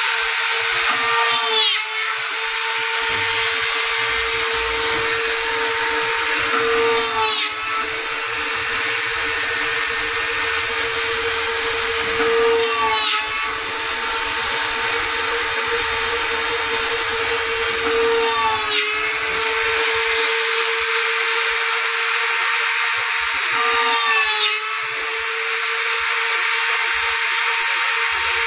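Homemade CNC router running, its blue rotary-tool spindle giving a steady high-pitched whine over a dense hiss. Short pitch sweeps, with a brief dip in the whine, come about every six seconds.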